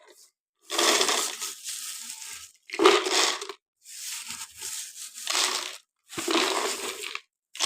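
Crisp fried nimki pieces being tipped into a storage jar, rattling and crunching against each other and the jar in several bursts of about a second each.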